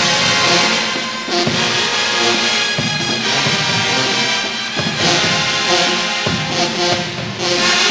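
College pep band playing a brass tune: trumpets, trombones and sousaphones over bass drum hits and cymbals.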